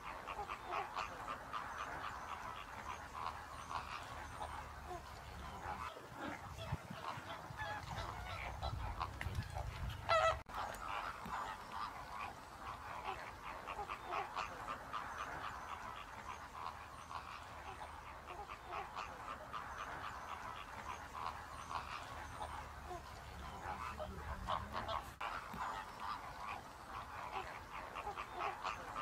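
A flock of greater flamingos gabbling and honking continuously, many goose-like calls overlapping, with one louder rising call about ten seconds in.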